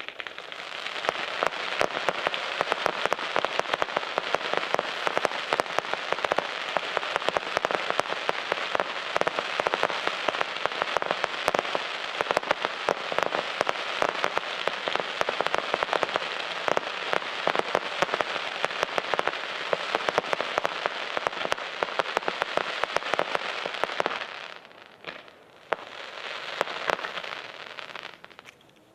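Crackling fireworks: a dense, continuous crackle of countless tiny pops that starts suddenly, holds for about twenty-four seconds, then dies away, with one short last flurry and a few scattered pops near the end.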